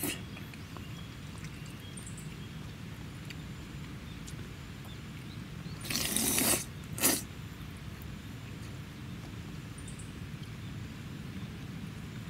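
A person slurping cold curry udon noodles: one long slurp about six seconds in and a short one a second later, over steady low background noise.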